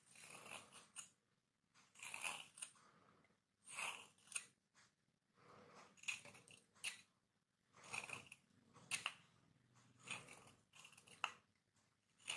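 A small knife shaving slices off a bar of hard Lux soap: a series of short scraping cuts, one every second or two.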